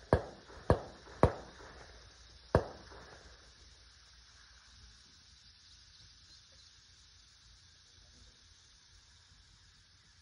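Four sharp rifle shots in quick succession within the first three seconds, each with a short ringing tail, then a low steady outdoor background.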